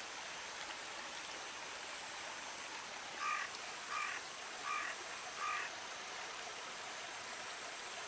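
Shallow stream flowing steadily over stones and riffles. About three seconds in, an animal gives four short calls, evenly spaced about three quarters of a second apart, standing out above the water.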